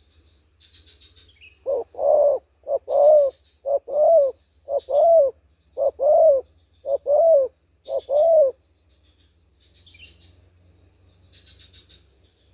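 Spotted dove cooing: seven two-note phrases about a second apart, each a short note followed by a longer, louder one. A thin, steady high insect drone runs underneath.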